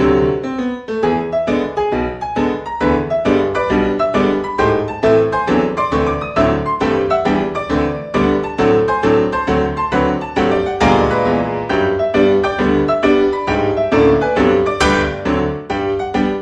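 Background piano music: a steady run of quick, evenly paced notes.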